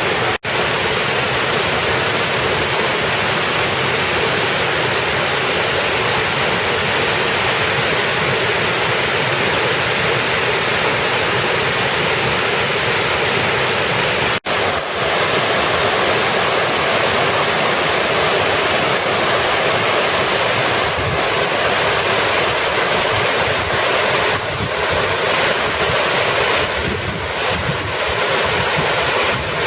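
Waterfall: a loud, steady rush of falling water, broken by two split-second gaps.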